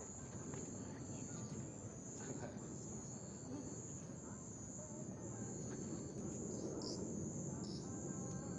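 Faint night insects trilling steadily and high-pitched, with two short extra chirps near the end, over a low, even background rumble.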